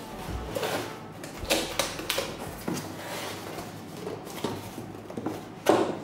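Cardboard mailer box being handled: rustling and scraping of a cloth pouch and cardboard with scattered taps, then a louder thump near the end as the box lid is shut.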